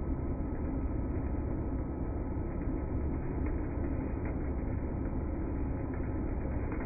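Dyson vacuum cleaner running with a steady, low, dull drone and a faint steady whine above it.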